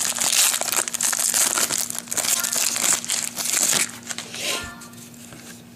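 Plastic trading-card pack wrappers crinkling and crumpling as packs are torn open, a dense crackle that dies down about four seconds in.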